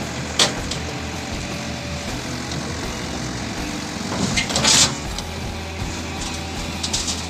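Hyundai excavator's diesel engine running steadily, with a sharp knock about half a second in and a louder, noisy burst of about half a second around four and a half seconds in, followed by a few light clicks near the end.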